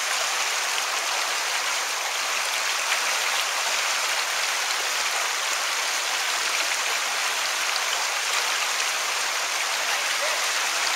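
Creek water rushing over rocks at a set of rapids, a steady even rush.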